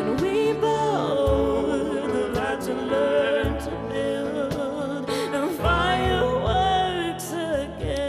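Live acoustic pop song: a woman singing a slow melody over accompaniment, with a deep cajón beat about every two seconds.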